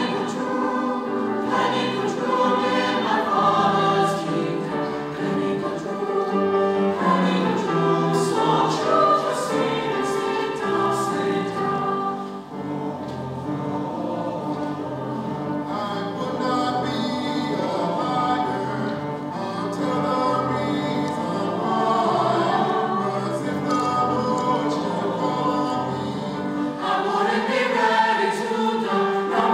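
Mixed choir of men's and women's voices singing together in held chords, with a brief break about twelve seconds in.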